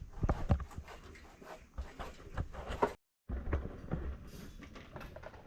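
Irregular knocks and clicks, a few at a time, with the sound cutting out completely for a moment about three seconds in.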